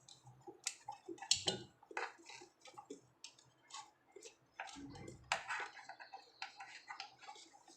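Irregular light clicks and taps of small parts and tools being handled during work on a refrigerator's relay and wiring, over a faint low hum.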